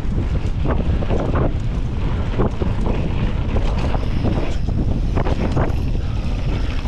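Heavy wind buffeting the microphone of a mountain bike's action camera as the bike rolls down a loose gravel dirt trail, with scattered short knocks and crunches from the tyres and bike over the rough ground.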